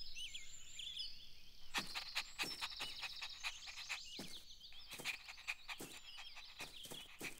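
Faint cartoon outdoor ambience: small birds chirping and twittering, with a scattering of short clicks from about two seconds in.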